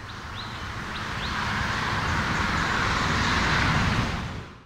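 Highway traffic noise, a steady rush of passing vehicles that swells over about four seconds and then fades out quickly near the end. A few faint short high chirps sound in the first second.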